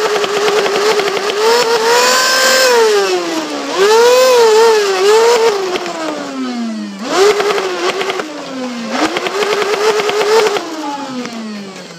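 Motorized flywheel Nerf blaster revving close by: its motors spin up to a loud whine, waver while held with a fast ticking over them, then wind down with a falling pitch, about four times over.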